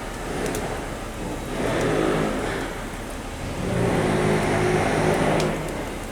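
A motor vehicle's engine running steadily, growing louder twice, with a few faint clicks in the background.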